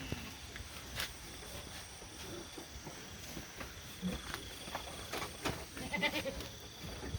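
Pigs in their pens calling now and then with short squeals and grunts, the loudest about six seconds in, among a few brief knocks.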